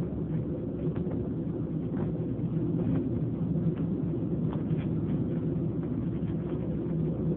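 Steady low rumble of a moving passenger train, heard from inside the carriage, with a few faint clicks now and then.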